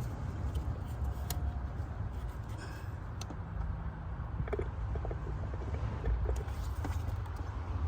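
Scattered faint clicks and taps of hands working a hose and parts in an engine's spark plug well, over a steady low rumble.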